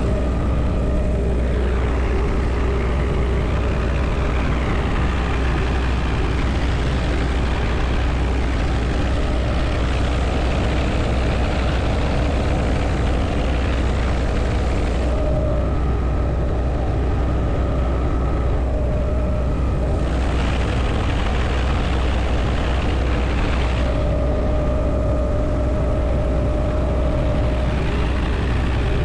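Helicopter in flight heard from inside an open-door cabin: a steady low drone of rotor and engine with wind rushing in over it. A faint higher whine comes and goes, about halfway through and again near the end.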